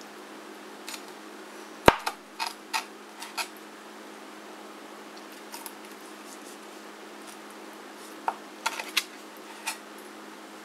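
Chinese cleaver cutting through a cooked whole chicken and knocking against the cutting board. A sharp knock about two seconds in is followed by a few quicker taps, and another cluster of taps comes near the end.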